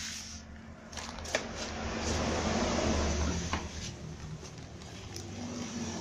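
Newspaper and cardboard rustling and scraping as a paper-wrapped fig cutting is laid in a cardboard box and the cardboard is folded around it, with a few sharp clicks. A low rumble swells and fades in the middle of the handling.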